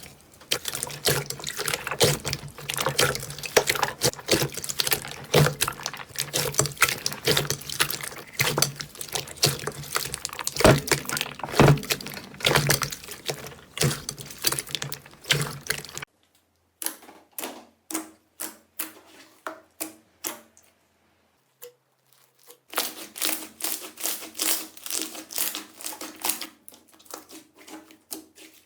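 Slime being squeezed and pressed by hands, making a dense run of wet crackles and clicking pops. Partway through it thins to scattered pops and falls silent briefly, then the dense crackling picks up again.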